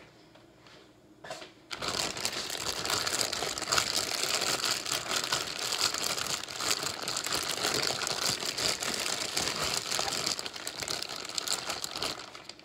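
Zip-top plastic bag crinkling continuously as chicken leg quarters and seasoning are handled inside it, starting about two seconds in.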